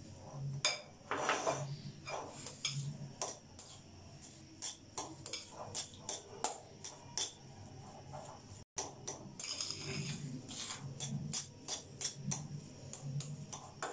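Boiled sweet potato being mashed with a spoon in a glass bowl: irregular clinks and scrapes of the spoon against the glass, with soft repeated pressing strokes.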